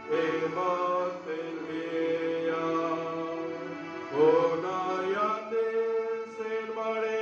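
Slow chant-like hymn singing in long held notes that step from pitch to pitch every second or two, over a steady low drone.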